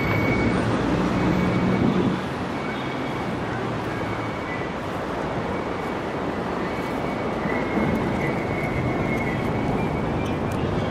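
Busy city street ambience: a steady wash of traffic noise, with a vehicle's low hum that drops away about two seconds in.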